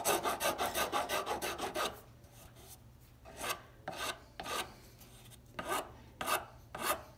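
Hand file rasping across a rosewood plane tote handle, taking off a little more wood to blend the new horn into the web area. Quick, closely spaced strokes for about two seconds, then slower single strokes about every half second.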